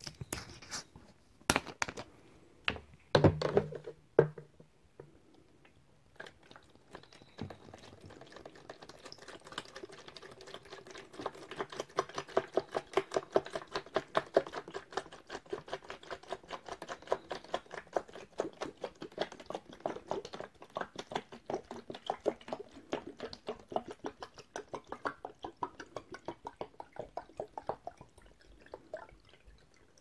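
A few sharp plastic clicks and knocks in the first few seconds as the apple juice bottle is handled and opened. Then apple juice glugs steadily out of the plastic bottle into a plastic jug, a rapid run of glugs that fades out near the end as the pour stops.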